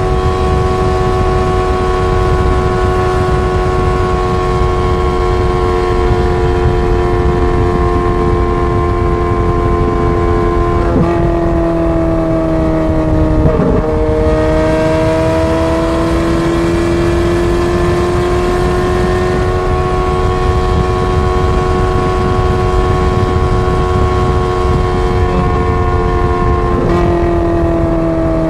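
Ferrari 430 Scuderia's 4.3-litre V8 on a straight-piped exhaust, running loud and fairly steady under way. Its pitch steps down sharply about eleven seconds in and again near the end, as at upshifts, and climbs slowly in between.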